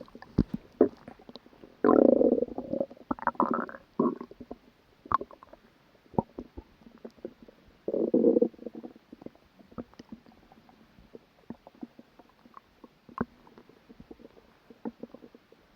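Human stomach growling and gurgling after a meal: two longer, louder gurgles, about two seconds in and about eight seconds in, among many short bubbling pops.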